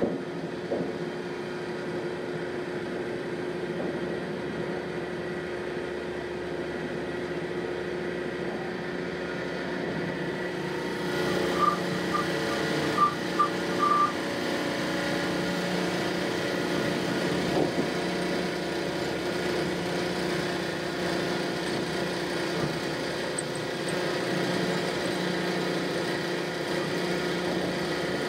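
Steady mechanical hum of a railroad turntable's drive as the bridge rotates, growing louder and rougher about eleven seconds in. Around then a quick series of about five short high beeps sounds.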